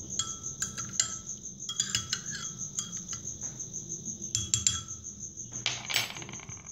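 Metal teaspoon stirring in a glass mug, clinking against the glass in three short bursts of ringing taps, with a brief louder rattle near the end. A cricket chirps steadily throughout.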